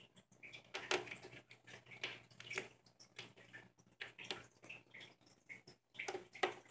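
Kitten clawing and scrabbling at the carpeted top of a cat scratch post while batting a toy, heard as faint, irregular scratchy rustles and soft knocks, louder in a few short flurries.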